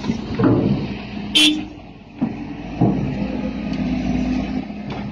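A heavy vehicle running with a steady hum, broken by several short, sudden sounds, the sharpest about a second and a half in.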